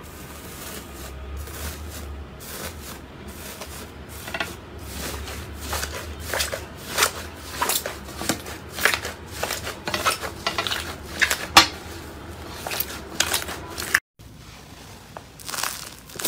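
Blue foil-wrapped inflated slime being pressed and broken open by hand: the foil crinkles and crackles in many sharp bursts while the foamy slime inside squishes. After a brief break near the end, a crunchy snow-textured slime crackles under the fingers.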